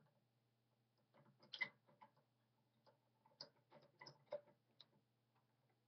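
Faint, irregular clicks and taps of small steel parts of a stripped-down Singer sewing machine being handled and fitted, with one sharper click about a second and a half in and a run of taps in the second half.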